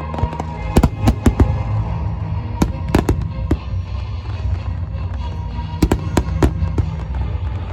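Aerial fireworks shells bursting in sharp bangs, in a cluster about a second in, another around three seconds and a third near six seconds, with music playing underneath.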